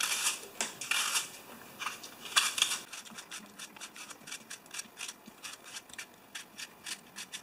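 Small kitchen knife peeling a raw apple with a few scraping strokes, then slicing chunks off the peeled apple held in the hand. The cuts make a quick run of short crisp crunches.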